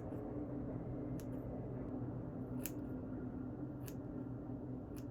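Hair-cutting scissors snipping through a section of side hair while trimming a hime cut: about five short, sharp snips, one every second or so, over a steady low hum.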